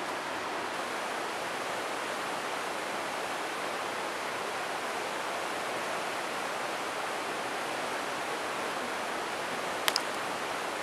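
Steady, even rushing noise, like running water or hiss, with two sharp clicks close together near the end.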